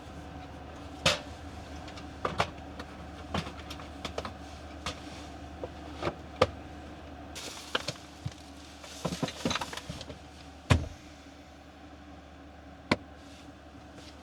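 Irregular knocks and clicks with short stretches of rustling: camp gear and dishes being handled and put away. A steady low hum runs underneath.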